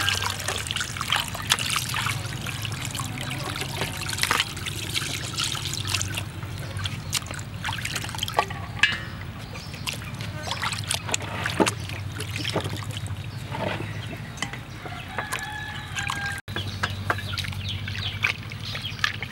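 Water trickling and splashing as raw plucked quail are rinsed and rubbed by hand in a metal basin of water, with many small splashes. Chickens cluck a few times in the background.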